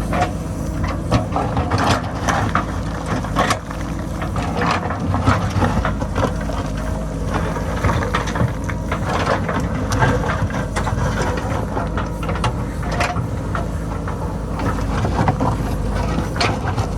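JCB backhoe loader's diesel engine running steadily while its bucket works a rocky hillside, with frequent irregular knocks and clatter of rocks and stones.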